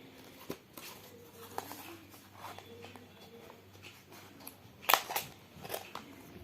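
Cardboard and paper packaging of watch bands being handled: soft rustles and scattered light clicks, with two sharper clicks about five seconds in.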